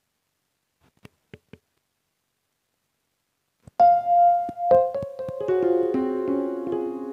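After a few seconds of near silence broken by three faint clicks, an electronic keyboard starts playing about four seconds in: a melody of held notes stepping downward and ringing over one another.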